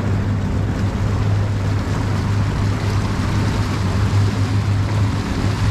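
Four Mercury 600 V12 outboard engines running together underway: a steady low drone, with water rushing in the wake and wind over it.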